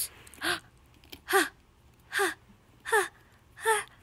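A child's voice making five short vocal sound effects, one about every 0.8 seconds, each dropping in pitch at the end.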